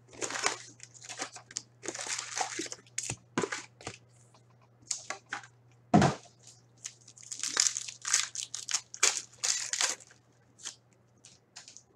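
Trading-card box and foil card packs being handled: bursts of wrapper crinkling and rustling, with a single thud about six seconds in. Near the end a foil pack is torn open.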